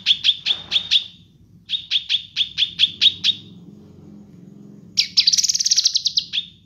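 Cucak kinoi leafbird singing: two runs of sharp, evenly repeated chirps at about five a second, then after a pause a faster, higher trill near the end. A low steady hum lies underneath.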